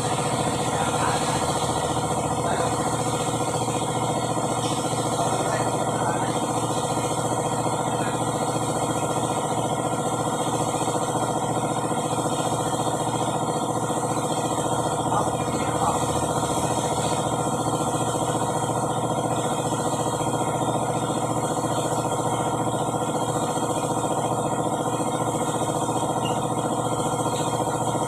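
An engine idling steadily at an unchanging speed.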